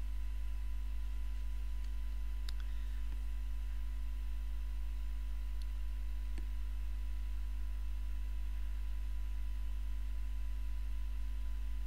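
Steady low electrical mains hum with a few faint clicks.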